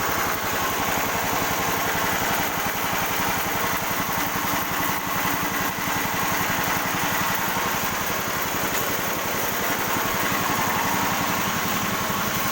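Small engine driving a sawmill, running steadily at an even speed.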